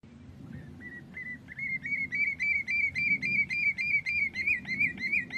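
Common redshank calling: a rapid run of ringing whistled notes, about four a second, that starts faint and grows louder over the first two seconds, then keeps on evenly.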